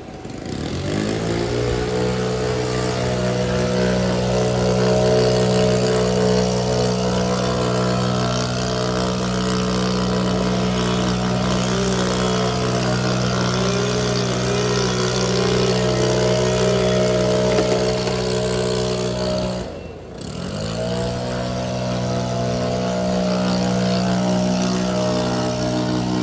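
Engine of tree-cutting power equipment revving up and running steadily at high speed. About 20 seconds in it drops off for a moment, then revs back up and holds.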